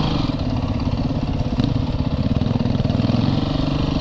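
Yamaha YZ450FX dirt bike's single-cylinder four-stroke engine running steadily, heard close up.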